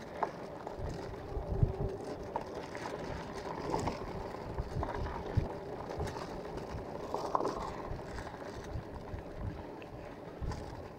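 Electric bike under way on its motor, a steady whine from the drive, with wind buffeting the microphone.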